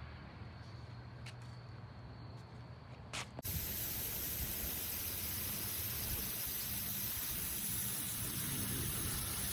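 Water spraying from a Sun Joe SPX2688-MAX electric pressure washer: after a low hum and a few clicks, a steady hiss of spray starts suddenly about a third of the way in and keeps going.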